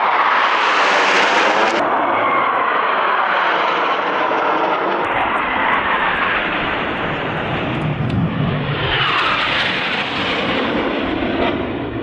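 T-50 jet aircraft roaring overhead, a continuous jet-engine roar with a sweep in pitch as a jet passes about nine seconds in.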